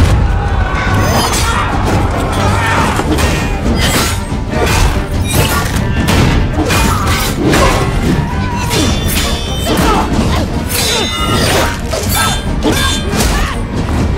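Action-film fight-scene soundtrack: dramatic music with a rapid run of hits, crashes and clashes throughout.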